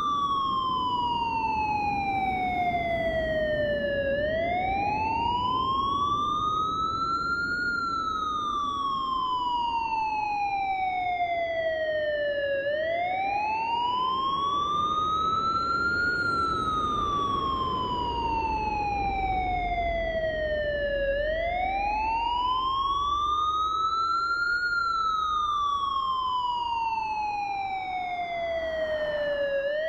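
A siren wailing in slow, regular cycles. Its pitch rises over about three and a half seconds, then falls more slowly over about five, and this repeats about every eight and a half seconds. A steady low rumble runs underneath.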